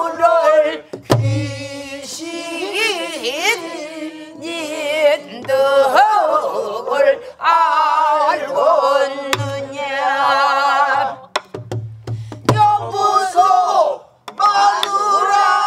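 Pansori singing: a woman's voice in bending, strongly wavering lines, with a class singing along. Buk barrel drums are struck with sticks and palms, giving deep thumps and sharp strokes at irregular intervals.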